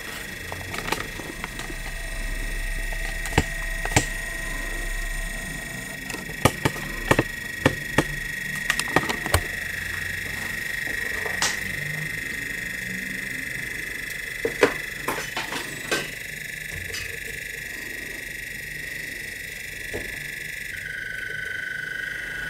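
Steady high-pitched electrical whine from a Bedini SSG pulse motor's coil and switching circuit, stepping slightly lower near the end. Over it come scattered sharp clicks of alligator-clip test leads being handled.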